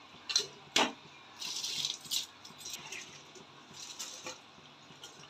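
Handfuls of soaked basmati rice being scooped and dropped into a pot of boiling water: a sharp click near the start, then a few short rustling hisses and light clicks spread through.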